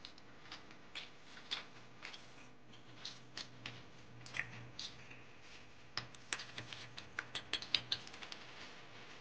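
Close-up eating sounds of momos being eaten by hand: scattered soft clicks and smacks of chewing and handling the dumplings. They come faster and louder about two-thirds of the way through, over a faint steady room hum.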